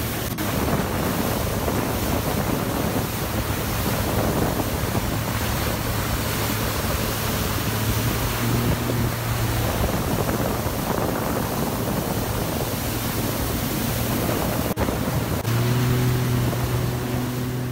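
Jet ski engine running at speed with a steady hum, under rushing water spray and wind on the microphone. The engine hum grows louder and fuller about fifteen seconds in.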